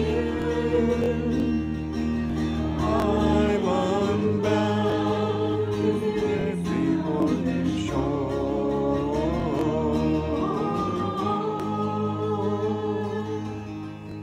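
A woman singing over bowed cello and Irish bouzouki, the closing phrases of a song. Her voice holds a long final note while the cello sustains low notes beneath, and the music dies away near the end.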